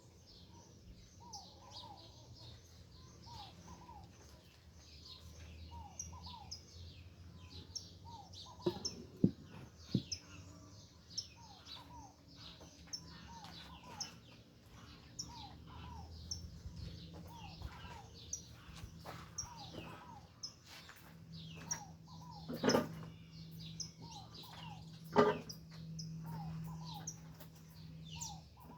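Several songbirds chirping and singing at once: many short, high, falling chirps, with one bird repeating a lower falling note again and again. A few sharp knocks cut through, the loudest two near the end.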